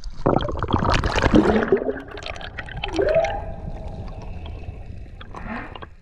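Underwater sound of bubbling, crackling water, with a few pitched calls that glide upward, one about a second and a half in and a stronger one around three seconds that rises and then holds its note.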